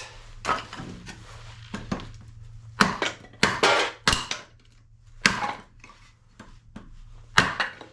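An axe chopping a knotty piece of wood: about half a dozen sharp blows at uneven spacing, the wood not splitting at the knot.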